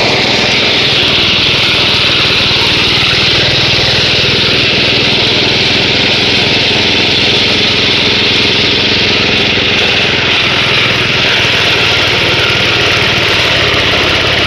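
Engine-driven forage chopper running steadily: a loud, even engine hum under a strong high hiss.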